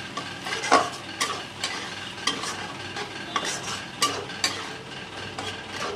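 A steel spatula stirs and scrapes onions and tomato purée in a metal kadhai, with oil sizzling steadily under it and irregular sharp clicks and scrapes against the pan. This is the masala being fried.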